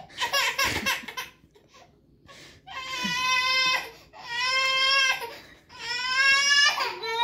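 A baby crying: short sobbing cries in the first second, then after a lull three long wails of about a second each, every one dropping in pitch at its end.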